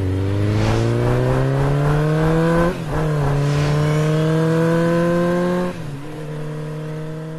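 Motorcycle engine accelerating through the gears. Its pitch climbs steadily, drops at an upshift about two and a half seconds in, climbs again, and drops at a second shift near six seconds. It then holds a steady note and fades out.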